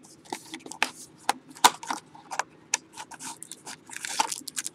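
Trading cards and foil pack wrappers being handled: a quick run of sharp clicks and short rustles and scrapes as cards are flicked through and wrappers crinkle.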